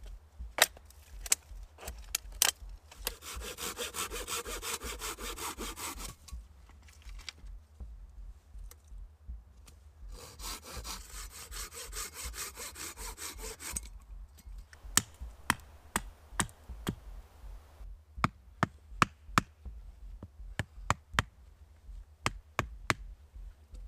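Hand saw cutting through a wooden branch in two spells of rapid, even strokes, each about three seconds long. Sharp wooden knocks come between them, and in the last third a steady run of knocks as wooden stakes are pounded into the ground.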